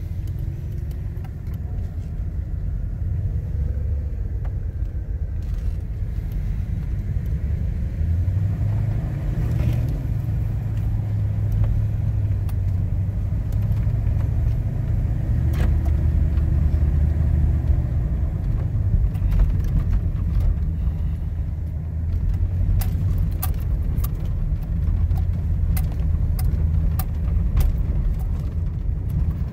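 Car's engine and tyre noise heard from inside the cabin while driving slowly, a steady low rumble. In the second half, a scatter of light clicks or rattles sounds over it.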